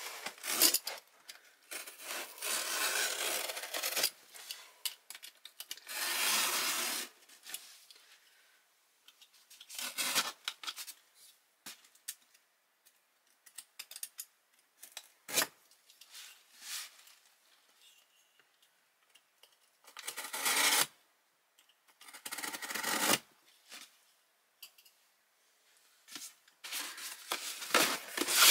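Packing tape on a cardboard shipping box being picked at, peeled and slit with a blade, in a series of scraping, tearing strokes of one to two seconds with quiet gaps between them. There is a single sharp click about halfway through.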